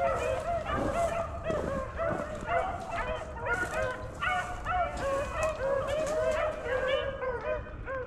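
A pack of beagles baying in chorus: several dogs' drawn-out, overlapping calls rising and falling one after another, the sound of hounds running a rabbit's trail.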